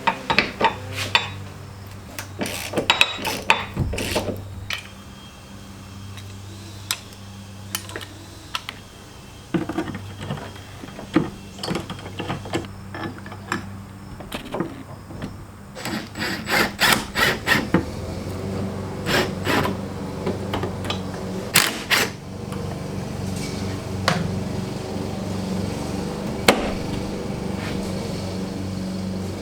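Hand tools working on the bolts of a Jeep tailgate hinge: irregular metal clanks and knocks, with a quick run of clicks about halfway through.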